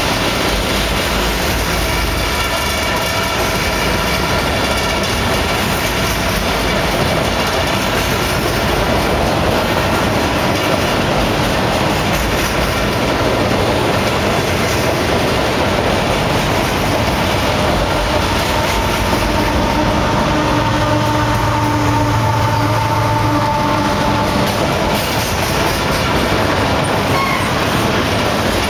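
Double-stack intermodal container cars rolling past close by: a loud, steady rumble of steel wheels on rail with clickety-clack from the rail joints. Thin squealing tones from the wheels run through it, with a stronger set swelling in for a few seconds about two-thirds of the way through.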